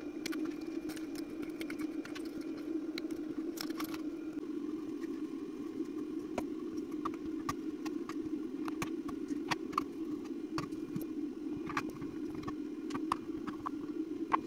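A steady hum of a fan or small motor running throughout, with scattered light clicks and metallic taps of hand tools and screws against a metal chassis and circuit board, coming more often in the second half.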